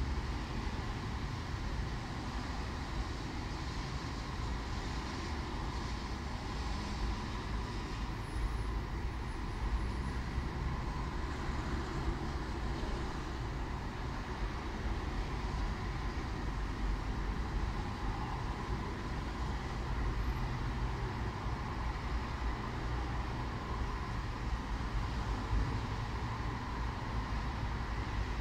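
Steady city road traffic: a continuous low rumble of passing vehicles, with no single vehicle standing out.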